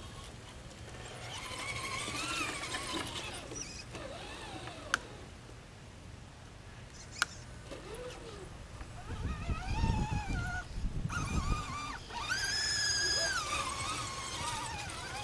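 Electric RC scale crawler trucks' motors and gearboxes whining, the pitch rising and falling with the throttle as they crawl over sand. Two sharp clicks come about 5 and 7 seconds in, and a low rumble comes around 9 to 11 seconds.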